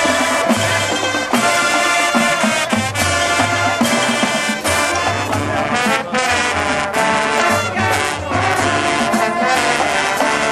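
Marching band playing a halftime show: brass section (trombones and trumpets) carrying the tune over a steady low drum beat.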